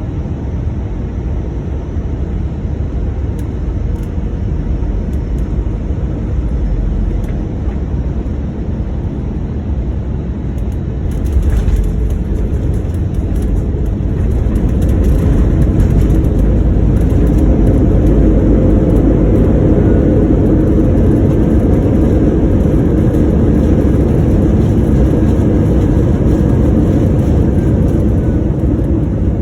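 Airbus A321 jet engine and airflow noise heard inside the cabin: a steady roar that swells louder about halfway through and stays loud.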